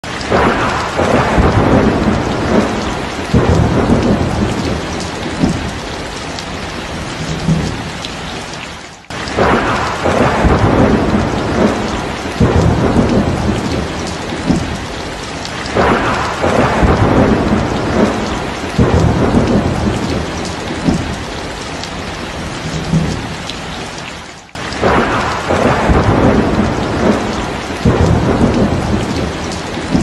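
Heavy rain pouring down with repeated rolling rumbles of thunder; the sound cuts out for a moment twice.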